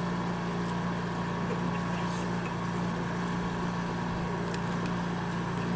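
A steady low hum over an even background noise, with no clear change.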